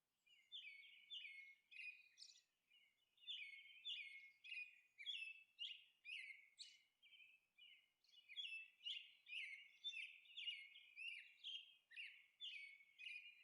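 Faint birdsong: a small bird chirping in quick runs of short, high notes, with a short pause about halfway through.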